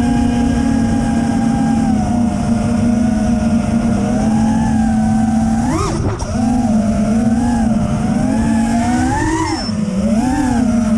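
FPV freestyle quadcopter's four brushless motors and propellers whining as heard from the drone's own camera, with wind noise underneath. The pitch holds steady for the first few seconds, then swings up and down with the throttle, rising sharply about six seconds in and again about nine seconds in.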